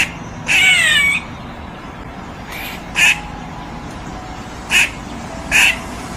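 Duck quacking: several short quacks at uneven intervals, with one longer call of falling pitch about half a second in.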